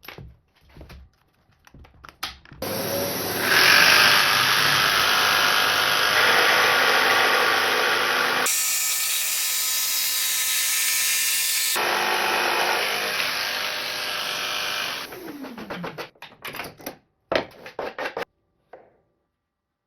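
Mafell PS2 power saw switched on and cutting wood, the motor running loud and steady for about twelve seconds, heavier once the blade is in the cut. It is switched off with a falling whine as it winds down, followed by several sharp clicks and knocks.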